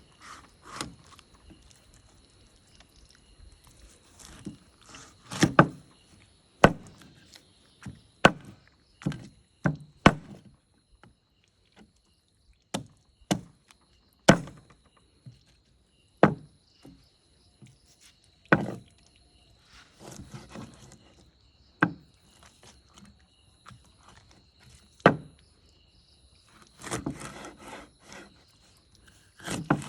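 Heavy knife chopping through fish on a wooden block: a string of sharp, irregular chops, with stretches of scraping and handling between them.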